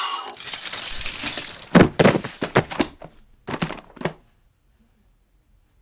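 A rustling hiss, then a clattering run of knocks and crashes, as of objects being knocked over in a cramped closet. The loudest crashes come about two seconds in, and the noise stops about four seconds in.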